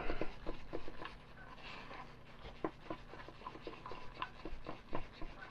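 Stir stick scraping and tapping against the inside of a plastic mixing cup in a run of light, irregular clicks, as West System epoxy is mixed with silica thickener.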